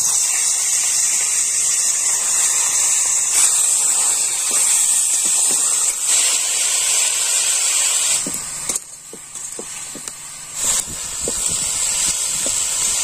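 Pieces of goat head meat, rubbed with turmeric and salt, sizzling loudly as they fry in hot oil in a wok. The sizzle dips briefly about eight seconds in, with scattered spits and pops.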